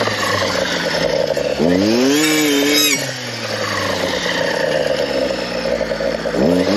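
Stihl clearing saw's engine running among brush, revving up about one and a half seconds in, holding high for about a second and a half, then dropping back to a lower speed. It revs up again near the end.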